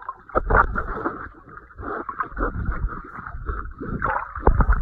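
Muffled water sloshing and bubbling heard through an underwater camera moving in the sea, with uneven splashy surges. These are strongest near the end as the camera nears the churning surface.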